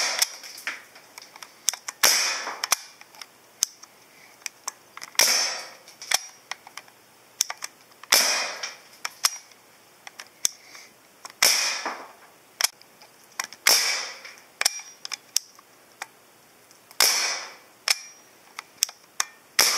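Benjamin Wildfire semi-automatic .177 PCP air rifle firing about seven shots a few seconds apart, each a sharp crack with a brief hiss of released air, with lighter clicks between shots. It sounds like a staple gun.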